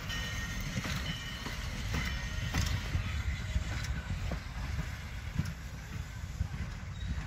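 Passenger coaches of a heritage train rolling away along the track: a low rumble with occasional clicks of the wheels over the rail joints and a few brief, faint high squeals in the first half, growing slightly quieter.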